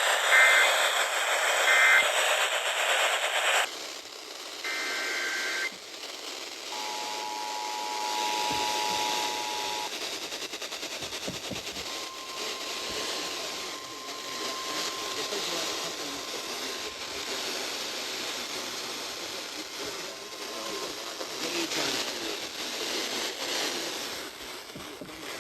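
Emergency Alert System broadcast heard over a radio through heavy static: a few short warbling SAME data bursts, then the two-tone EAS attention signal for about three seconds, then the long single-tone NOAA Weather Radio warning alarm, held steady for about nine seconds.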